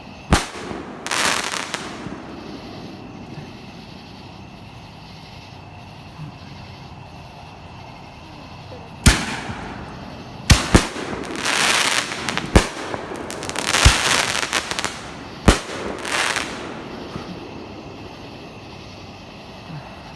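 Fireworks going off: sharp bangs mixed with crackling bursts. There is one bang and crackle at the start, then a lull of several seconds, then a cluster of loud bangs and crackles in the second half.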